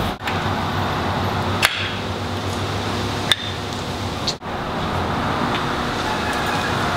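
Two sharp metallic clicks, about a second and a half apart, from brass air-line fittings and a wrench being handled, over a steady rushing background noise that cuts out briefly twice.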